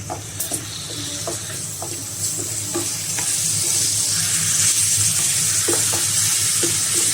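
Minced chicken and onion paste frying in oil in a pan, sizzling steadily and growing louder over the first few seconds. A spatula scrapes and taps against the pan now and then as the mixture is stirred.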